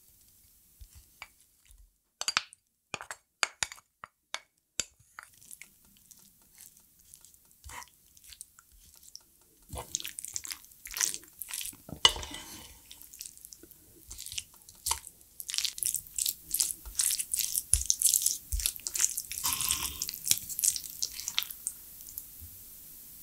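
Close-miked eating sounds: a few sharp clicks in the first seconds, then from about halfway dense wet chewing and smacking of food.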